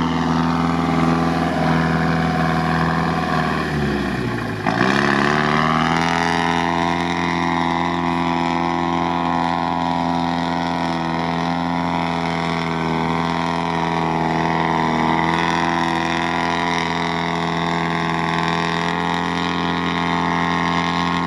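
Modified GAZ-63 truck's engine running hard as the truck pushes through deep bog mud. About four seconds in the revs drop briefly and pick up again, then hold steady and high.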